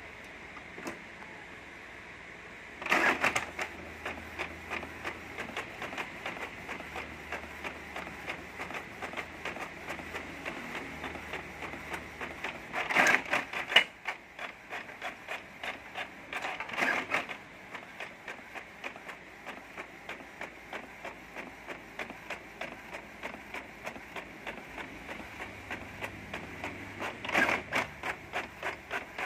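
Inkjet printer running with its cover open: the print-head carriage shuttles and the paper feed moves with a quick, regular clicking over a steady mechanical hum. Louder bursts of whirring come a few seconds in, twice near the middle and once near the end.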